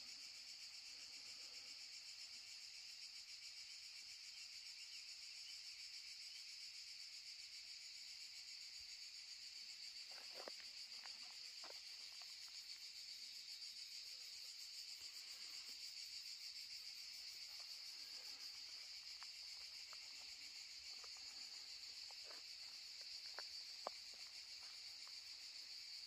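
Faint, steady, high-pitched chorus of insects shrilling in the summer heat, with a few faint ticks around the middle and near the end.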